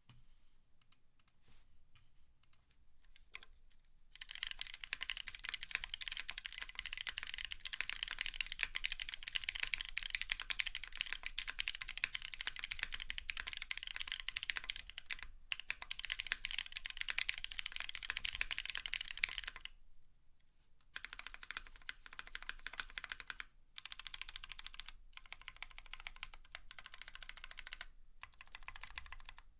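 Typing on a Duck Viper V3 mechanical keyboard with lubed and filmed vintage Cherry MX Black linear switches on a polypropylene plate, under GMK keycaps. A few scattered keystrokes come first, then about four seconds in fast continuous typing that runs for some fifteen seconds. After that the typing is lighter, with short pauses.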